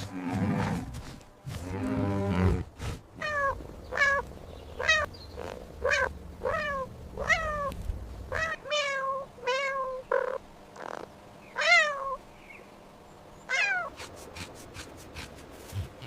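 A cat meowing over and over: about a dozen short, high meows, roughly one a second. Before them, in the first couple of seconds, come two or three low, rough animal calls.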